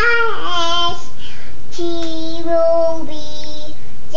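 A toddler girl singing in a high voice, holding long, level notes; the longest lasts about two seconds in the middle.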